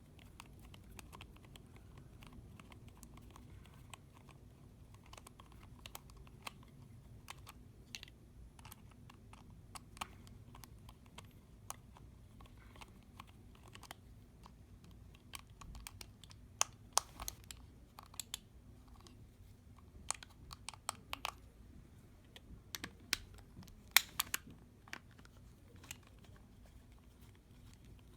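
Scattered small clicks and taps from handling the plastic Bluetooth bike lock while the screws on its back are taken out. The clicks come more often and louder in the second half.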